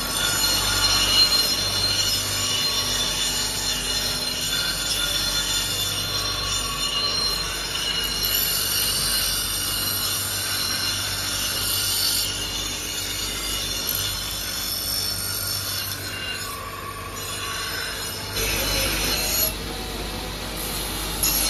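Steel axe-head blank pressed against a motor-driven grinding wheel: a steady high screech of metal on the abrasive wheel over the motor's hum. About 18 seconds in, the grinding stops and a louder, lower machine hum takes over.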